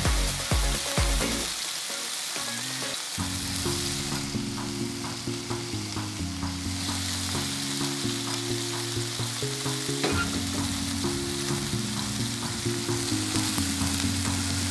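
Strips of marinated chicken breast sizzling on a hot ridged grill pan: a steady frying hiss. Background music with held low notes runs underneath.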